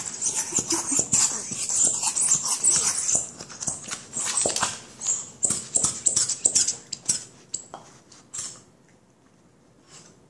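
A dog rolling and wriggling on its back on a hardwood floor with a toy in its mouth: a rapid run of scratching and rubbing noises mixed with small vocal noises from the dog. It dies away about eight seconds in.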